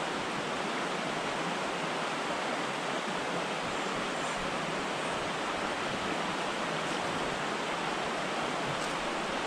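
Shallow rocky creek running over stones and riffles: a steady, even rush of water.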